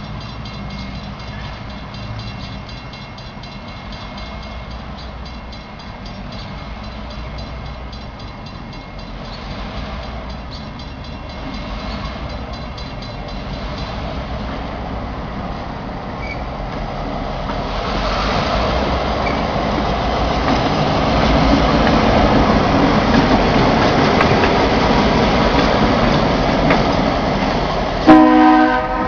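Norfolk Southern diesel locomotive approaching on the tracks, its engine rumble growing steadily louder as it nears. A short horn blast sounds near the end and is the loudest moment.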